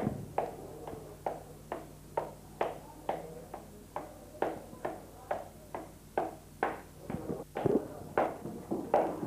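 Footsteps of hard-soled shoes walking at an even pace, about two steps a second, over a faint low steady hum.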